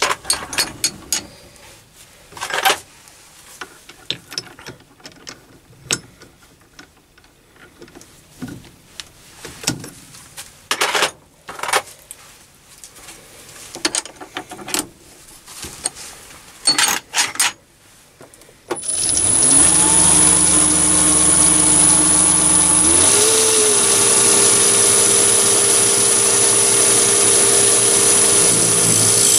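Metal clicks and knocks as a brass workpiece is repositioned and clamped in a mini lathe's chuck. About two-thirds of the way in, the lathe's motor starts, its whine rising as the chuck spins up, then runs steadily with a high-pitched whine.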